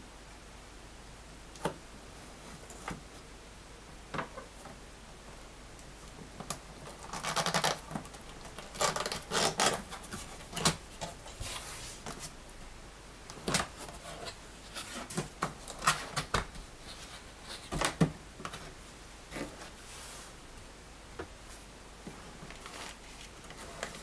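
Cardboard box being opened by hand: a utility knife slitting the packing tape, then cardboard flaps scraping, tearing and being pulled open. Scattered clicks and rustles, busiest around the middle.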